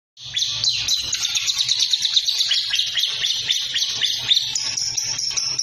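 A songbird singing a fast, unbroken run of chirps, each short note sweeping downward. About four and a half seconds in, the song switches to a higher, more even trill.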